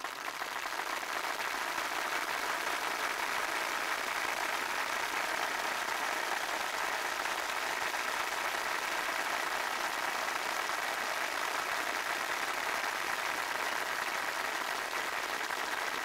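A crowd applauding, a dense, steady clatter of many hands clapping that swells in over the first second.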